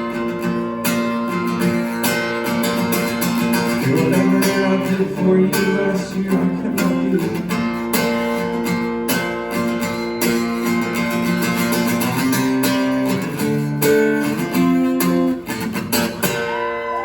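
Acoustic guitar strummed in a steady rhythm through changing chords with no vocals: the instrumental close of a song played live.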